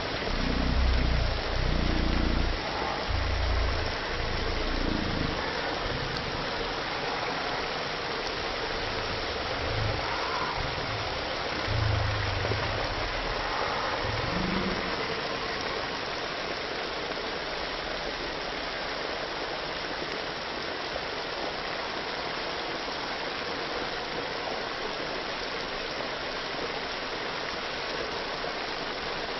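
Chicken deep-frying in hot oil: a steady sizzle throughout. There are some low rumbles and bumps in roughly the first half.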